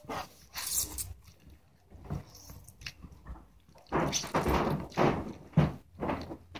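Homemade borax-and-glue slime being squeezed and kneaded by hand, giving irregular wet squelching bursts, busiest about four to five seconds in.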